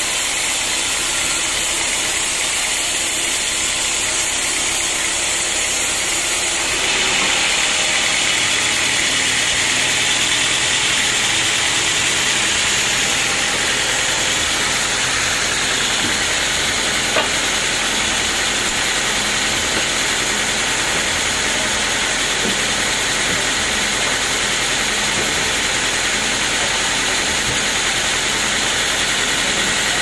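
Band sawmill machinery running steadily, a constant loud mechanical din of the saw and its drive; about seven seconds in it turns brighter and a low hum joins it. A single sharp knock sounds a little past halfway.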